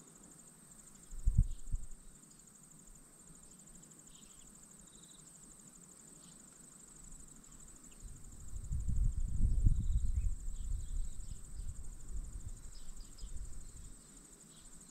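Steady high-pitched chirring of cicadas. A low rumble of wind buffeting the microphone comes briefly about a second in and louder for several seconds past the middle.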